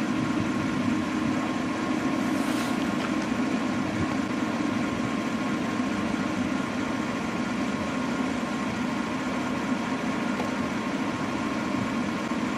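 An engine running at a steady idle-like hum, its loudness unchanging, with a brief faint hiss about two and a half seconds in.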